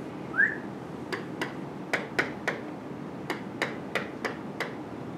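Pen tip clicking against an interactive whiteboard while writing: about ten sharp, irregular taps, with a short squeak about half a second in.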